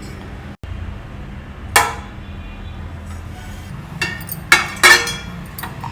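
Metal kitchen utensils clinking and knocking against a steel steaming plate while a steamed dhokla is freed from it. One sharp knock about two seconds in, then a quick run of four or five clinks near the end, over a low steady hum.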